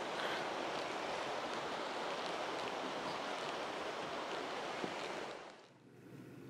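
Snowmelt river rushing steadily over rocks, fading out about five and a half seconds in.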